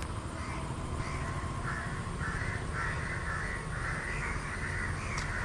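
A crow cawing over and over, about seven or eight short caws at roughly two a second, starting about a second and a half in.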